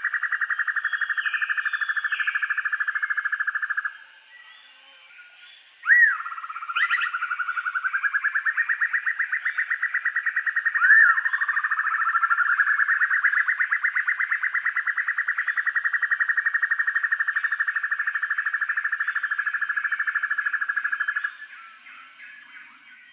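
Sempur-hujan rimba broadbill singing: a fast, even trill that runs for about four seconds, breaks off, and after a few short upswept notes comes back as one long trill before stopping near the end.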